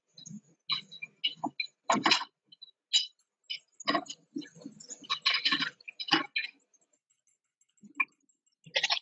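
Electric hand mixer beating egg yolks and sugar, its beaters clicking and rattling against the bowl in irregular short bursts that drop out between them, as heard over a video call.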